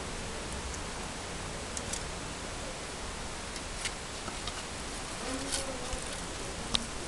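A few light sharp clicks of hard plastic, the loudest near the end, as a rabbit noses the sliding disc of a plastic treat-puzzle toy, over a steady hiss.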